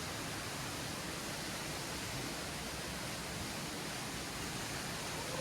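Waterfall's rushing water as a steady, even hiss with no other events.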